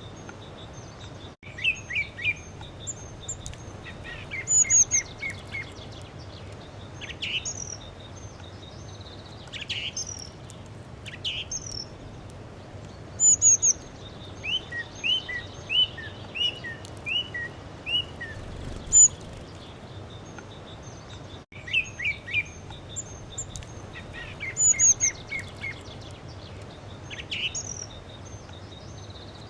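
Songbirds singing: repeated bursts of quick, high chirps and short runs of rapid notes, over a steady background hiss.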